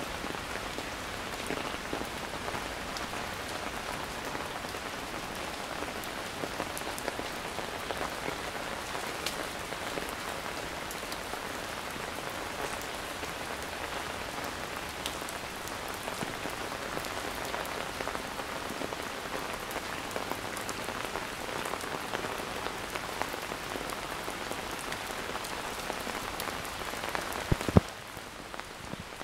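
Steady rain falling and pattering on surfaces, with scattered individual drops ticking. Near the end a few sharp, louder taps sound and the rain noise suddenly drops lower.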